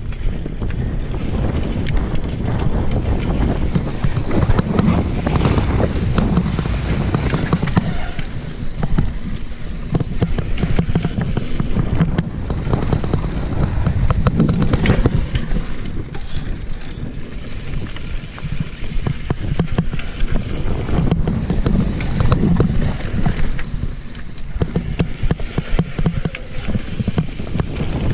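Mountain bike descending a rocky gravel downhill trail: tyres crunching over loose stones and the bike rattling over constant small bumps, with heavy wind buffeting on the microphone.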